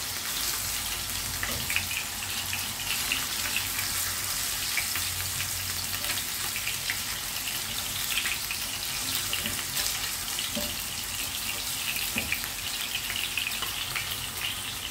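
Salmon pieces frying in hot oil in a pan: a steady sizzle with small crackles, and a few light clicks and knocks as the pieces are turned with tongs.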